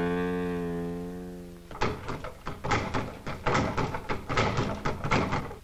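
A sustained low bowed-string note fades away. About two seconds in, a boxing speed bag starts being punched in a fast, uneven run of sharp strikes, roughly four or five a second.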